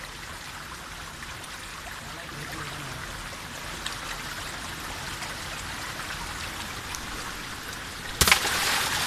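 Shallow rocky stream flowing steadily over stones. Near the end comes a sudden loud burst of noise, the loudest sound here.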